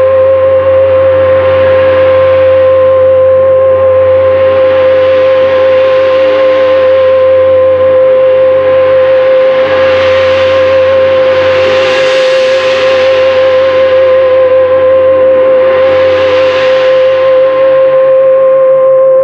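Large gong played by friction, its rushing shimmer swelling and ebbing in several waves. Under it a theremin holds one steady note with a slight waver.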